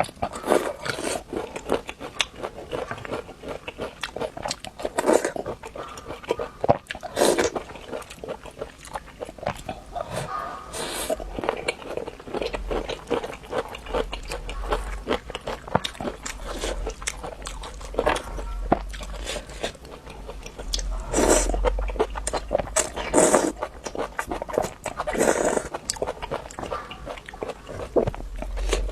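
A person eating close to the microphone: repeated bites and chewing with crisp crunching and crackling, a louder bite every second or two. A low hum runs underneath through the second half.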